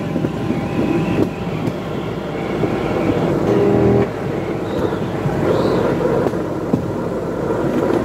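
Motorized rail trolley running along the track: a steady engine and wheel noise with scattered rattling clicks. A louder steady hum builds for the last second before the midpoint, then drops off suddenly.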